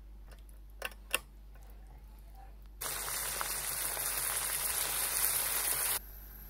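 Chopped asparagus, onion and ricotta sizzling in a frying pan as they are stirred. A steady hiss starts suddenly about three seconds in and cuts off near the end, after two light clicks about a second in.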